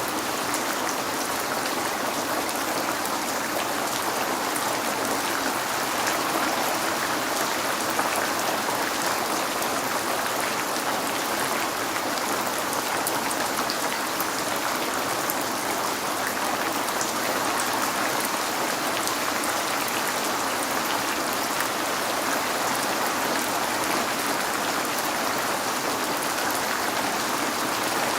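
Steady rain falling, an even hiss of drops with faint scattered ticks of individual drops, heard as rain on a window.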